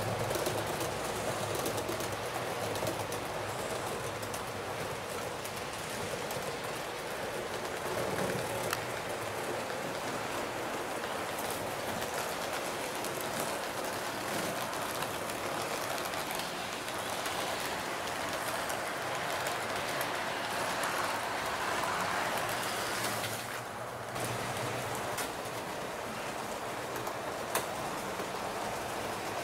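Model train running along the layout's track: a steady rolling rattle of wheels on rail with a low motor hum, with a brief drop in level near the end.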